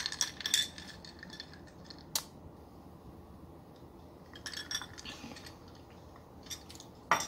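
Metal drinking straw clinking and scraping against a cup in a few separate clinks, with a sharp one about two seconds in and a louder knock near the end.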